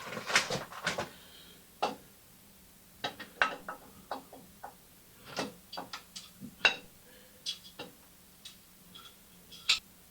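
Irregular metallic clinks and taps of a Norton Commando gearbox outer cover being worked onto its shafts, with the gear change being wiggled to line the parts up.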